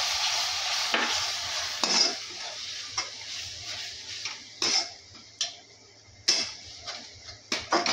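Green chilli and ginger paste sizzling in hot oil with fried onions in a metal kadhai. The sizzle fades over the first few seconds as the wet paste is stirred in, while a perforated metal spatula scrapes and clinks against the pan about once a second, standing out more sharply toward the end.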